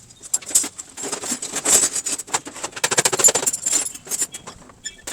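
Rapid clattering and clinking of small hard objects, densest in the middle few seconds.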